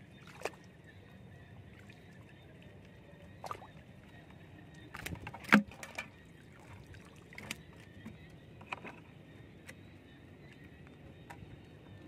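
Plastic bucket being handled at the edge of shallow water: scattered knocks and light water splashes, with a loud sharp knock about five and a half seconds in.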